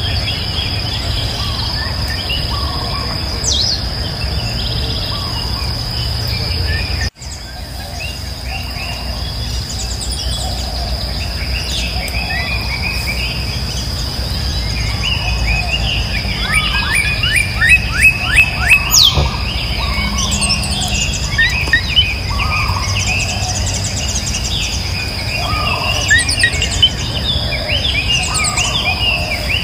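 Birds chirping and calling, with a run of loud, rapid chirps a little past the middle, over a steady high-pitched insect drone.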